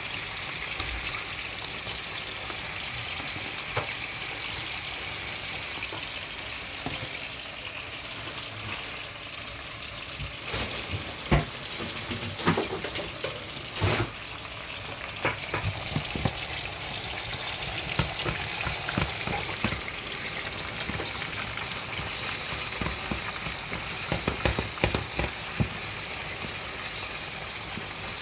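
Ground beef sizzling as it fries in oil in a pan, a steady hiss. From about ten seconds in, scattered knocks and scrapes of a spoon stirring the meat against the pan.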